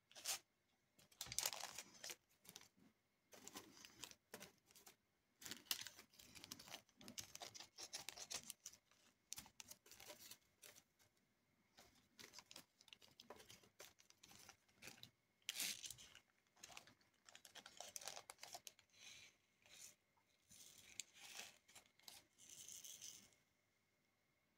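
Diamond-painting work: resin drills rattling in a plastic tray and clicking as the drill pen picks them up and presses them onto the canvas. Irregular bursts of small clicks and rattles come with short pauses between them.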